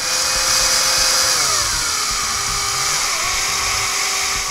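Electric screwdriver running as it drives a screw into the buggy's plastic chassis. Its motor whine steps down in pitch about a second and a half in, dips again near three seconds, then runs steady until it stops.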